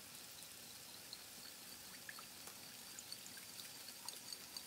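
Wire whisk stirring a honey and soy sauce mixture in a glass bowl: faint liquid swishing with light ticks of the wires against the glass, more frequent in the second half.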